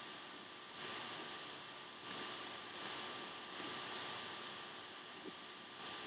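Computer mouse button clicking about six times, each click a quick press-and-release double tick, over a faint steady hiss and hum.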